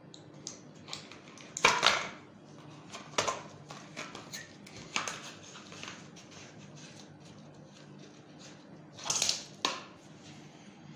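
Packaging being handled: a cardboard box and a foil blister strip of softgel capsules give scattered crinkles and light knocks. The loudest come about two seconds in and again near the end. A faint steady hum runs underneath.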